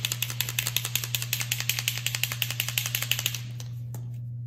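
Mixing ball rattling inside a POSCA paint marker as it is shaken hard to mix the paint before first use. It makes a fast run of sharp clicks, about eight to ten a second, that stops about three and a half seconds in.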